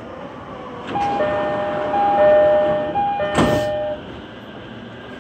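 Train door-closing chime of a JR East E231 series commuter car: a two-note high-low chime sounding three times over about three seconds, with a short loud burst of noise near its end as the doors shut, over the steady hum of the stopped carriage.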